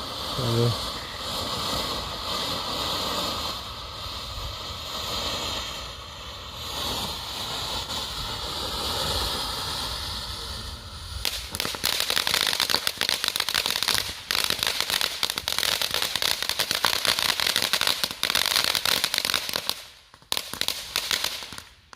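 Ground fountain firework spraying with a steady hiss, which turns into dense, rapid crackling about halfway through and sputters out near the end.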